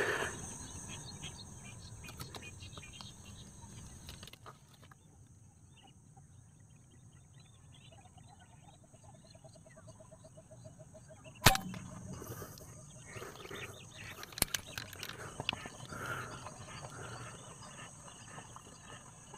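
Faint outdoor ambience with a short run of rapid, evenly pulsing calls, then a single sharp crack about halfway through, the loudest sound, and a fainter click a few seconds later.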